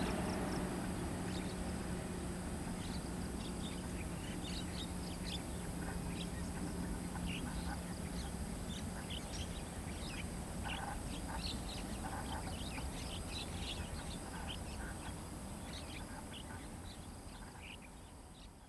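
Distant jet airliner engine noise dying away as the aircraft rolls out on the runway after landing, a low steady hum fading over the first several seconds. Birds call in short chirps throughout, and all the sound fades out near the end.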